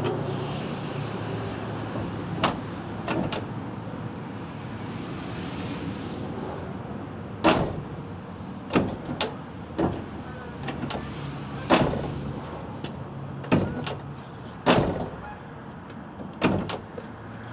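Truck door being swung and shut again and again, with a series of sharp metal clunks a second or two apart as the latch catches, over a steady low hum.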